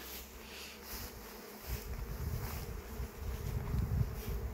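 Swarm of honeybees in flight, a steady hum of many bees. A low, irregular rumble comes in about a second and a half in.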